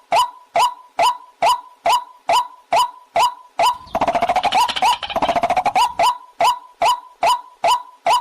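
Waterhen call, as played from a recording to lure the birds: a sharp note repeated evenly about twice a second, interrupted about four seconds in by some two seconds of rapid chattering before the repeated notes resume.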